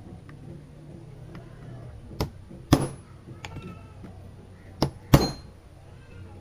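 Hammer blows on metal: four sharp strikes with a short metallic ring, in two pairs, a softer tap followed by a harder blow, about two seconds in and again about five seconds in, knocking on a car's seized rear camber-adjustment bolt.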